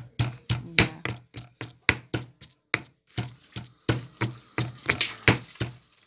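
Stone pestle pounding garlic and pepper in a granite mortar, crushing them fine: a steady run of sharp knocks, about three a second, that stops shortly before the end.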